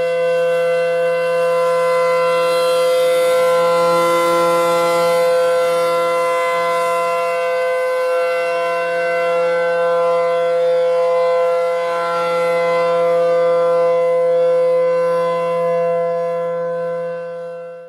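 Outdoor tornado warning siren sounding a steady, unwavering tone that fades out near the end.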